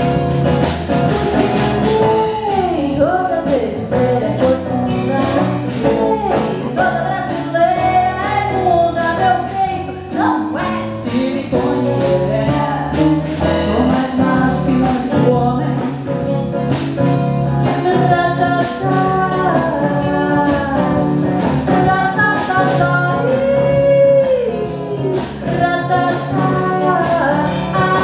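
A woman singing through a PA microphone over a live band of acoustic and electric guitars and a drum kit, with a steady beat of drum and cymbal strikes.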